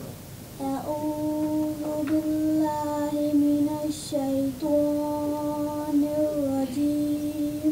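A female voice reciting the Quran in a slow melodic chant, drawing out each syllable on long held notes with brief pauses between phrases.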